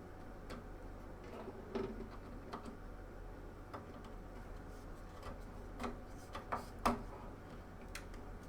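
Scattered light plastic clicks and taps of a DDR3 memory module being handled and pressed into a motherboard DIMM slot, the loudest click about seven seconds in. A low steady hum runs underneath.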